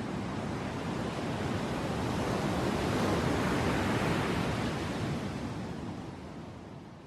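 Ocean surf washing, an even hiss of breaking water that swells to a peak midway and then fades out.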